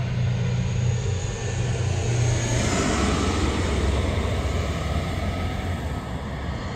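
Four-engine turboprop military transport, a C-130 Hercules, flying low overhead: a steady low propeller drone under broad engine noise, with a turbine whine joining about two and a half seconds in.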